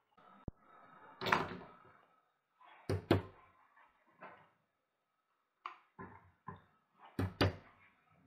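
Silicone pop-it fidget toys being set down on a pile on a table: a series of knocks, the loudest coming in quick pairs about three seconds in and again near the end.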